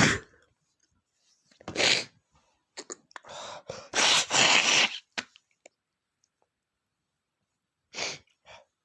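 A man sneezing over and over in sharp, noisy bursts. The loudest comes right at the start and another about two seconds in. A long drawn-out double sneeze follows at about four to five seconds, and a shorter burst comes near the end.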